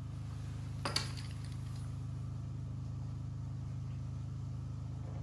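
A single sharp metallic clink about a second in, as the metal pastry cutter wheel is picked up from the wooden table, over a steady low hum.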